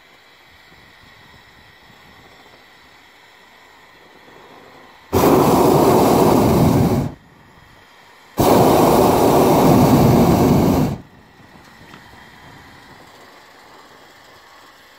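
Hot air balloon's propane burner firing in two blasts, about two and two and a half seconds long with a second's gap between them. Each blast starts and stops abruptly.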